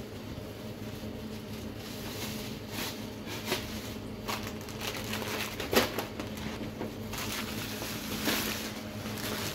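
Thin plastic carrier bags rustling and crinkling as they are handled, with scattered sharper crackles, the loudest about six seconds in.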